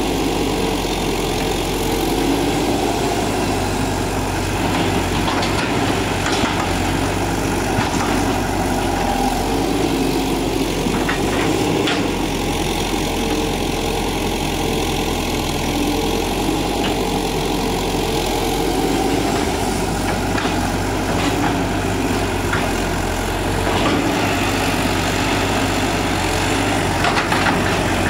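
Hitachi EX120-5 hydraulic excavator's diesel engine running steadily, with a few faint clicks and knocks scattered through it.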